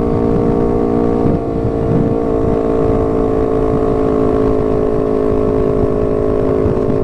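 Honda CBR250RR with an aftermarket R9 GP racing exhaust, its engine running at a steady, unchanging speed.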